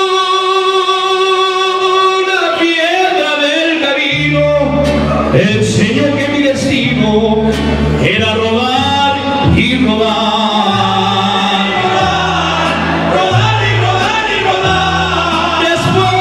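Live mariachi band singing a ranchera in chorus: several male voices over violins and guitars, with a long held note opening it. A guitarrón bass line comes in about four seconds in.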